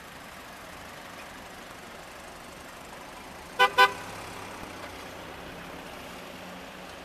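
Car horn tooting twice in quick succession about halfway through, over the steady sound of a line of cars driving slowly past.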